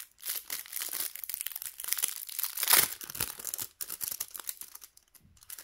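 Packaging crinkling and rustling as a pack of photocards is opened and handled: dense crinkling for the first few seconds, loudest about halfway through, then thinning to scattered rustles.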